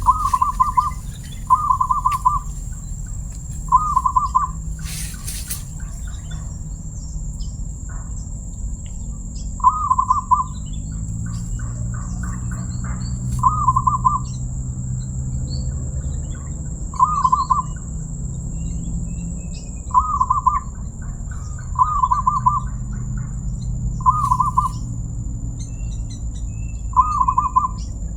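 Zebra dove (perkutut) cooing: about ten short phrases of quick rippling notes at one low pitch, coming every one to four seconds, over a thin steady high whine.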